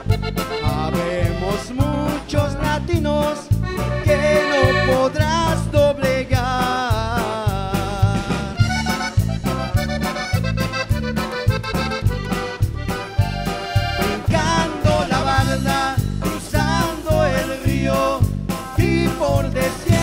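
Live band music led by an accordion, over electric bass, guitars and a drum kit keeping a steady, even beat.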